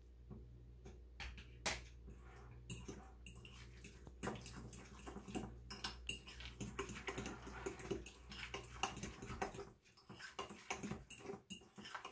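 A spoon stirring and scraping through a thick mayonnaise-dressed salad in a glass bowl, with irregular clinks of the utensil against the glass and wet squelching.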